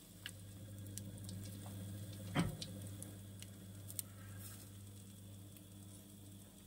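Electric oven running in rotisserie mode: a steady low hum with scattered faint ticks, and one soft knock about two and a half seconds in.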